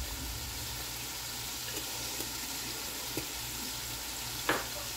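Diced chicken breast sizzling steadily in hot oil in a skillet, with a few faint clicks and one sharper tap about four and a half seconds in.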